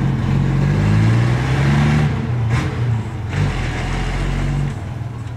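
Fire truck's engine pulling away under power, its pitch rising and breaking about two seconds in, then the sound fading near the end as it moves off.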